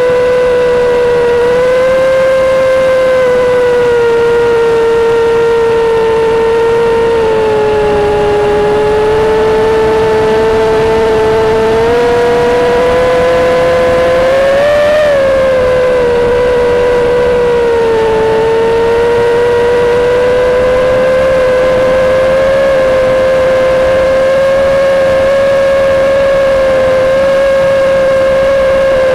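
Racing drone's Dragonfly Hurricane 2207 2500 KV brushless motors spinning Kingkong 5040 three-blade props, picked up by the onboard camera as a steady high whine. The pitch wanders up and down with the throttle and peaks briefly about halfway through.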